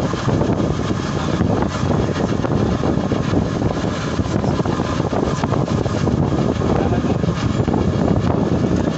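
Steady engine and tyre noise heard from inside a moving vehicle driving on a wet road.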